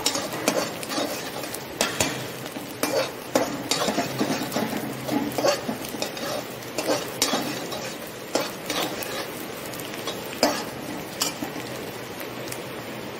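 Steel spatula scraping and clinking against a kadhai as chopped onions are stirred and sautéed in hot oil, with a steady sizzle underneath. The strokes come irregularly, about one or two a second, and thin out near the end.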